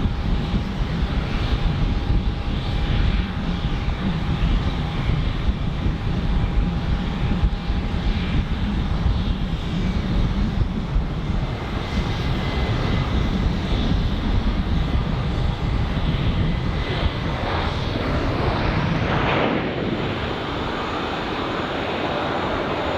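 Jet airliner's engines running close by: a loud, deep rumble with a faint steady whine, easing slightly near the end.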